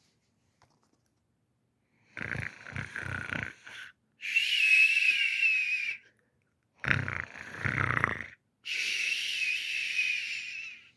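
Snoring, twice over, starting about two seconds in: each time a rasping, fluttering snore on the in-breath, then a high wavering whistle on the out-breath.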